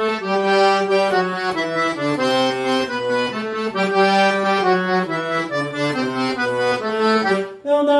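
Accordion playing an instrumental introduction: held chords with a bass line under a moving melody, with a brief break near the end.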